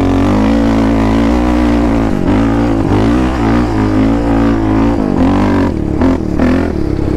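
Yamaha Raptor 700 quad's single-cylinder four-stroke engine running under hard throttle. Its pitch rises and falls as the rider works the throttle, with several short dips in the second half.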